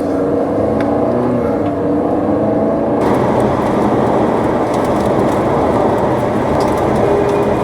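Steady rushing noise of a storm chaser's vehicle on the move, with engine and road noise that swells and thickens about three seconds in.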